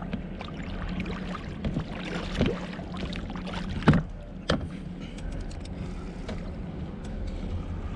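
Rowing an inflatable boat with an aluminium oar: the blade dipping and splashing, with several sharp knocks from the oar, the loudest about four seconds in.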